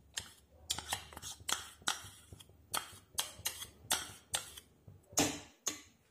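Metal spoon scraping and clinking against a ceramic bowl in quick repeated strokes, about two a second, as the last of the sweetened condensed milk is scraped out into the pan; the loudest stroke comes near the end.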